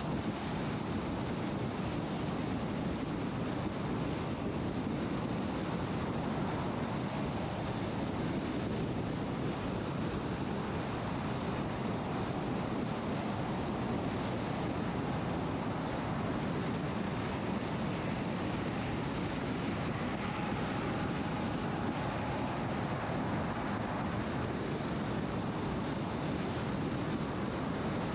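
Steady road noise of a car cruising at highway speed: tyre roar on the pavement mixed with wind rush, even and unbroken throughout.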